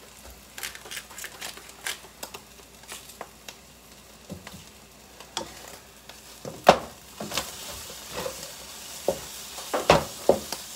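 Eggs frying in a pan, with a sizzle that grows louder about seven seconds in. Scattered clicks and knocks of kitchen utensils run through it, with one sharp clack just before the sizzle rises and a cluster of knocks near the end.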